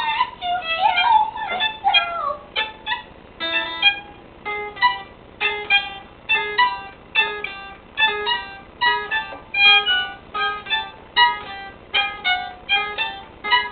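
Violin played unskillfully: a few sliding notes at first, then a steady run of short repeated notes, about two a second.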